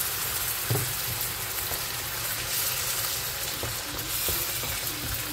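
Onions and peppers sizzling steadily in a non-stick frying pan as tomato purée is poured over them and stirred in with a wooden spatula, with a few soft knocks of the spatula.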